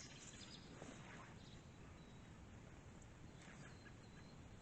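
Near silence: faint outdoor background with a couple of faint, high bird chirps, about halfway through and again near the end.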